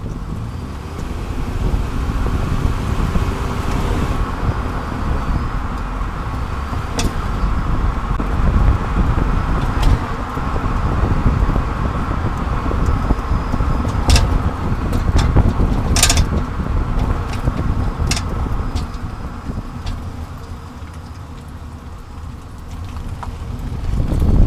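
Road, tyre and wind noise of a 30-series Toyota Prius on the move, picked up by a camera mounted under the rear bumper, with a few sharp ticks scattered through it. The car is being recorded to find an abnormal noise from the left rear that has not been identified.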